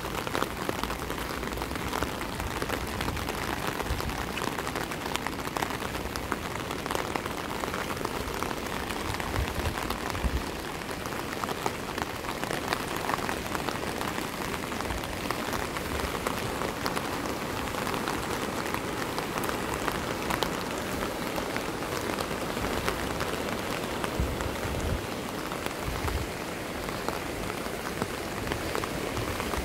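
Steady rain: a dense, even patter of many drops.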